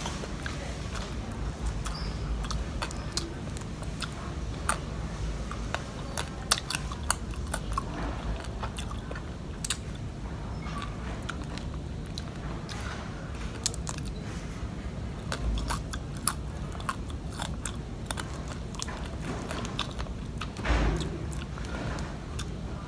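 Close-miked chewing and crunching of fried catfish eaten by hand, with many scattered sharp clicks and crackles and a brief louder burst near the end.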